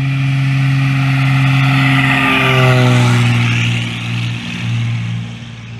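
Embraer Corisco single-engine propeller plane running past close by on the ground. Its engine tone drops in pitch between two and three and a half seconds in as it passes, loudest at that moment, then fades away.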